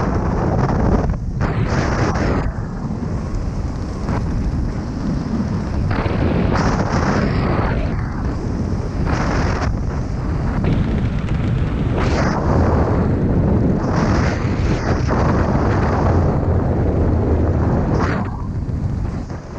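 Loud wind noise rushing and buffeting over a skydiver's camera microphone in the air, swelling and easing every second or two.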